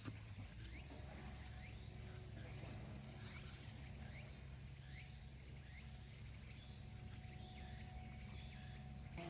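Faint outdoor ambience: a steady low hum, with short, rising animal chirps about once a second.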